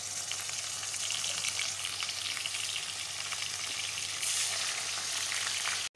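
Ginger-garlic paste and sliced onions sizzling and crackling in hot ghee in a kadai as a spoon stirs them together.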